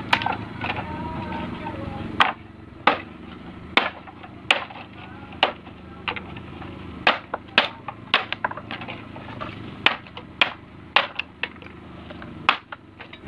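Machete chopping dry wood into short lengths: a series of sharp, unevenly spaced chops, about one or two a second.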